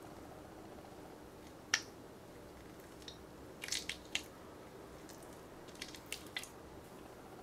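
Mesh squishy stress ball squeezed in the hand, its gel-filled rubber skin bulging through the net with short, sharp squishes: one loud one about two seconds in, a quick cluster around four seconds and a few more near the end. A steady low hum runs underneath.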